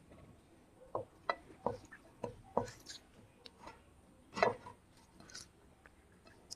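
Close-miked eating sounds: a run of short wet clicks and smacks, five in quick succession in the first few seconds, then a louder one about four and a half seconds in and another a second later.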